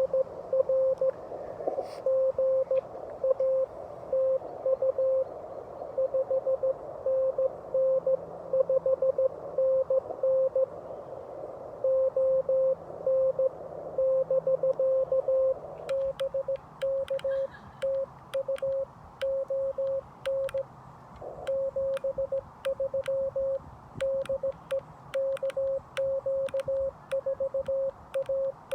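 Morse code (CW) from an HF amateur radio, heard as a single steady tone keyed in dots and dashes. For the first half the tone sits in band hiss. From about halfway in it is cleaner, with a sharp click in step with the keying.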